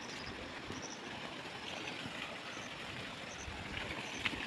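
Steady rush of water pouring from a village spring spout (dhara), with short high chirps now and then and a single click near the end.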